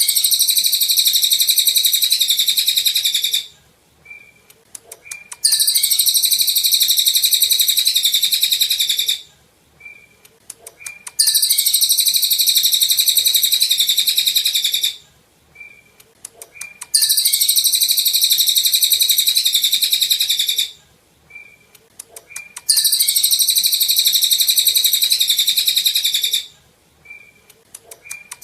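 A cililin songbird singing in five repeated bouts of a fast, very high, dense trill, each about three and a half seconds long, separated by short pauses holding a few brief lower chirps.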